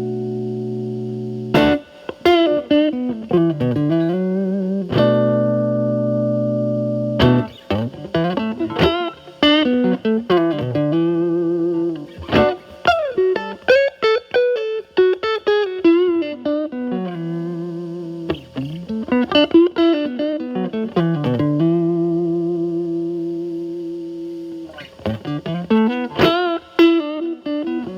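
Electric guitar, a Telecaster, played through a Fender Pugilist distortion pedal into a Marshall Valvestate amp's clean channel, with the pedal's Gain A side blended in alone. The playing is distorted blues lead: a few held chords between bursts of single-note lines with string bends and vibrato.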